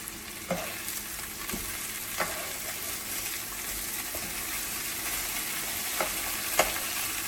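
Chicken breasts sizzling in butter as they brown in a frying pan, a steady frying hiss. A few light knocks come through it, about five over the few seconds.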